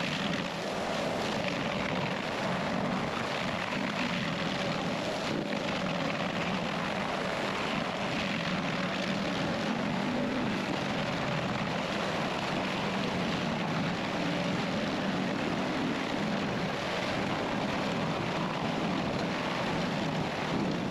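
A heavy machine's engine running steadily, a constant noisy drone that holds the same level throughout.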